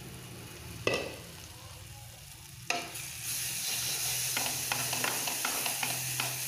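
Thick tomato-onion masala sizzling in a stainless steel kadai as a spatula stirs it, scraping and clicking against the pan. There are two sharp knocks in the first three seconds. From about three seconds in, the sizzling is louder, with quick spatula clicks several times a second.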